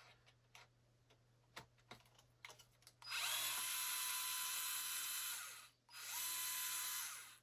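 A few light clicks, then a small cordless power driver runs twice, a longer burst about three seconds in and a shorter one soon after, each winding down at its end, as screws on the RC car are driven.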